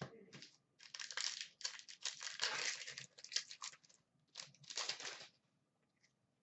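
Foil wrapper of a 2015-16 Upper Deck Series 2 hockey card pack crinkling and tearing as it is handled and ripped open, in a run of short crackly bursts that stops about five seconds in.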